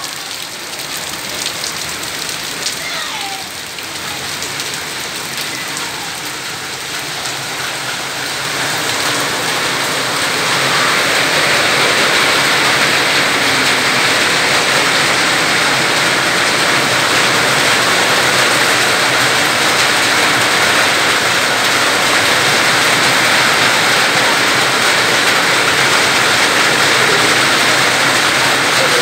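Heavy rain pouring onto paving and tiled roofs, a steady hiss that swells about ten seconds in and then holds.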